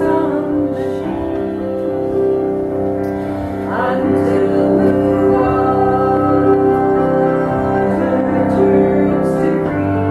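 Women's voices singing a folk song, accompanied by bowed cello and piano.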